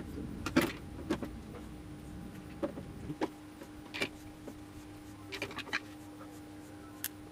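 A few light, irregular clicks and taps of hands handling small wires and parts at a machine casing. A faint steady hum comes in about three seconds in.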